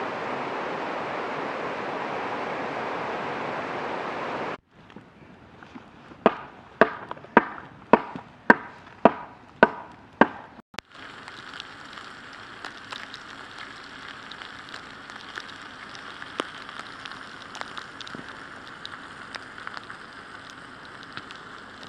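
River water rushing over a rock ledge. It cuts off, and a campfire follows with about eight sharp cracks, roughly two a second. Then comes a quieter steady pattering of wintry precipitation with scattered light ticks.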